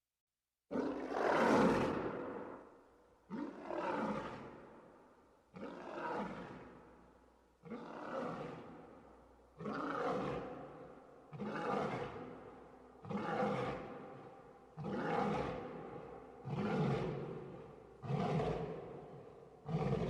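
Lion roaring in a bout. One long, loud roar comes after a moment of silence, then about ten shorter roars follow roughly every two seconds, each starting abruptly and fading away.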